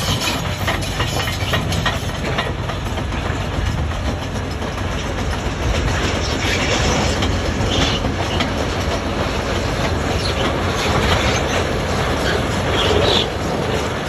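Caterpillar D6XE diesel-electric crawler dozer at work: its engine running steadily under the clanking of its steel tracks, with broken stone scraping and tumbling ahead of the blade in a few louder bursts.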